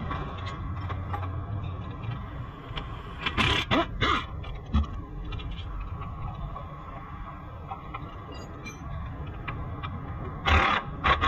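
Steady low hum of workshop background noise, with a few short clatters from hand work on a car's front suspension about three and a half seconds in, and again near the end.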